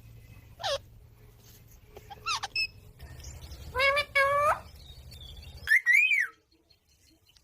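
Pet green parrot calling: a few short, sharp calls that sweep down in pitch, a longer two-note call midway, and a call that rises then falls near the end.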